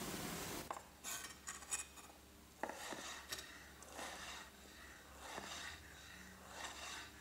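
An 8-inch Shun chef's knife slicing through kiwi fruit. The blade taps faintly and unevenly on the cutting board, about twice a second, starting under a second in.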